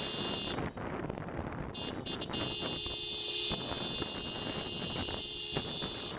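Wind and road noise on a moving motorcycle, with a steady high-pitched buzzing tone over it that breaks off about half a second in and comes back about two seconds in.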